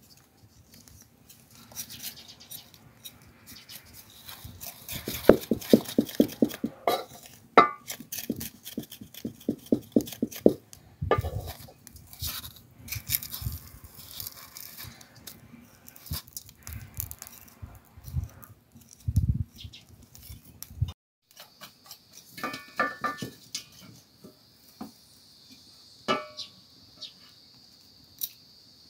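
A knife scraping and cutting charred skin and singed wool off a sheep's head in a metal basin: quick runs of rasping strokes, knocks and clicks. From about three quarters of the way through, insects chirp steadily.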